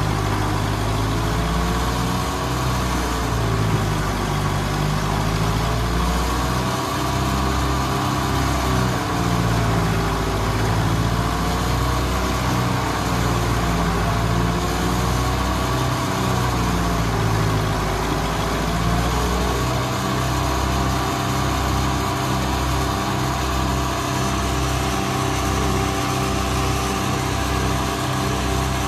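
1952 Ford 8N's four-cylinder flathead engine running a McCormick-Deering No. 5 silo filler as it chops corn stalks. The engine's pitch rises and falls over and over for most of the time, then holds steadier near the end.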